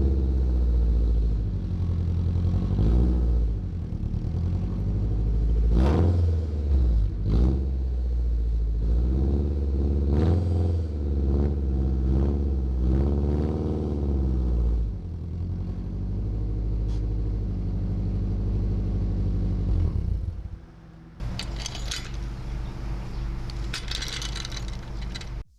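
Acura Integra's engine running and being revved, with a loud exhaust note from a torn flex pipe, so that it sounds like an open header. About 21 seconds in, the sound dips briefly and then turns into a fast, even pulsing with more hiss.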